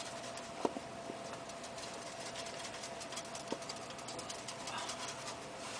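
Oil and sauces sizzling in a hot pan: a steady, fine crackle of many small pops, with a couple of light clicks.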